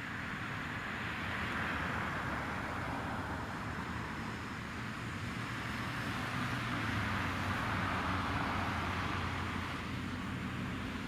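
Jet engine noise from a Boeing 777-300 flying past: a steady rushing hiss over a low rumble, swelling about two seconds in and again around eight seconds in.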